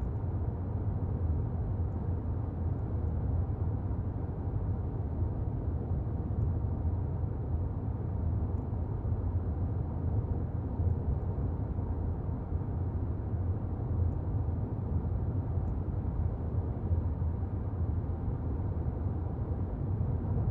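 Car driving along at a steady pace: an even, low rumble of tyre and road noise with the engine running.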